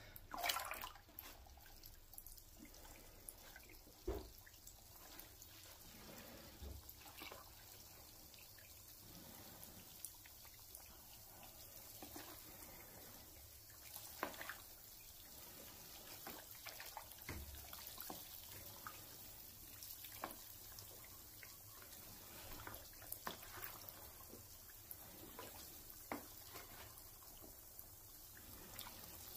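Lime whitewash (hydrated lime, salt and water) being stirred in a bucket with a flat wooden stick: faint sloshing and small liquid splashes throughout, with a few soft thumps.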